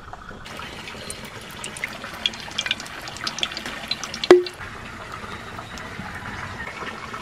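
Hot cooking oil in a wok crackling and spitting with many small pops over a steady hiss. A single sharp metallic clank with a short ring about four seconds in.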